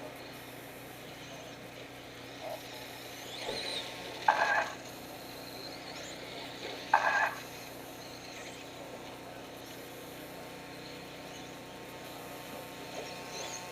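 Radio-controlled stadium trucks running on a race track: a steady background hum with a brief rising motor whine, and two short loud blips about four and seven seconds in.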